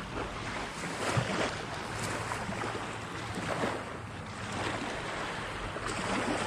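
Small waves washing against a rocky shoreline in a run of irregular soft swishes, with a little wind on the microphone.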